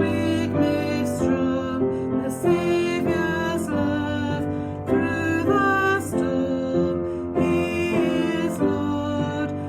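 Music: a gentle song sung by a woman over piano accompaniment.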